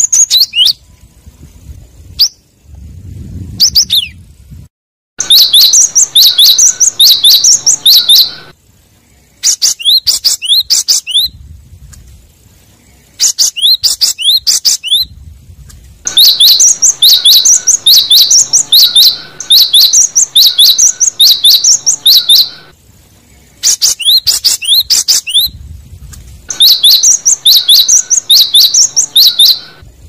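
Cinereous tit (gelatik batu) singing bursts of rapid, repeated high notes. Each burst lasts from about a second to several seconds, with short pauses between them.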